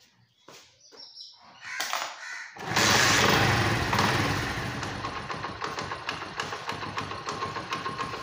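Honda CD 70 motorcycle's small single-cylinder four-stroke engine starting. It catches about two and a half seconds in, runs loudest for a moment, then settles into a steady idle with an even pulse.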